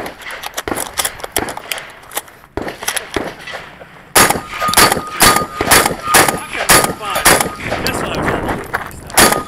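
Rapid gunfire from a Stoeger M3K 12-gauge semi-automatic shotgun and then a CZ SP-01 pistol. Loud shots come about two a second from about four seconds in, with steel targets ringing in a steady tone as they are hit. Lighter clicks and knocks come before the shooting picks up.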